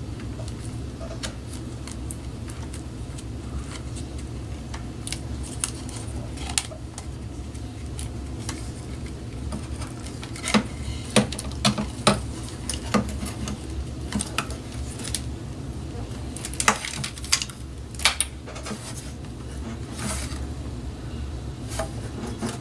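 Light metallic clinks, rattles and clicks from wiring and small metal parts being handled, scattered throughout, with two clusters of sharper clicks, one about halfway through and another a few seconds later, over a steady low hum.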